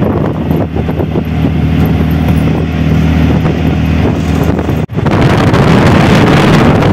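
Auto-rickshaw engine running steadily while the vehicle drives at speed, with road and wind noise. About five seconds in the sound cuts abruptly to louder rushing wind on the microphone.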